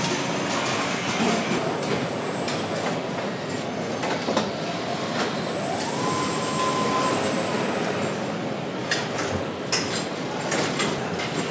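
Engine assembly line running: a steady din of conveyors and machinery with scattered metallic clicks and clanks, and a brief rising whine about six seconds in.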